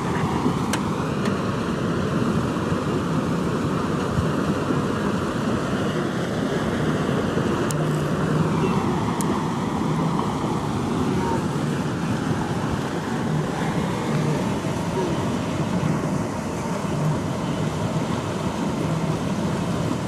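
Steady rushing din of a large wildebeest herd crossing a river, hooves and splashing water blended into one continuous noise, with wind on the microphone.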